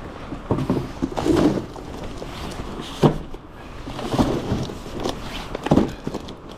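Cases of food product being set down and stacked, a series of thuds and knocks over a steady background noise.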